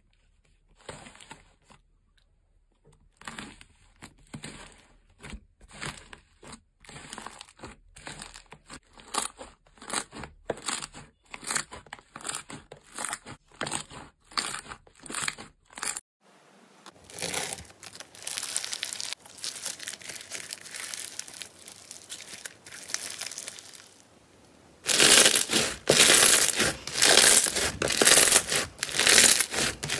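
Hands playing with slime in three parts. First comes a run of short, separate crackly strokes from slime topped with paper labels. Then a softer, continuous squishing as a purple slime is pressed. Last and loudest, a dense crackling as a red textured slime is squeezed and pulled apart.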